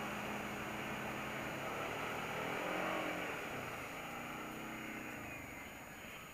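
Kawasaki Brute Force ATV engines running as they plough through muddy water and climb a trail, with a hiss of spray at first. The engine note rises and falls about three seconds in, then eases off and gets quieter near the end as the ATVs slow down.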